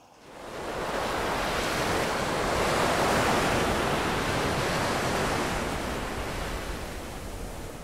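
A steady rushing noise like surf or wind, swelling in over about the first second and easing off slowly toward the end.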